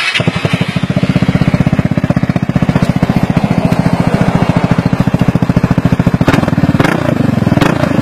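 Vespa GTS 300's single-cylinder four-stroke engine, breathing through an aftermarket Black Widow carbon-fibre silencer, catches at the very start and settles into a loud, steady idle of rapid even exhaust pulses. About six seconds in the beat turns less even, with a few sharp knocks.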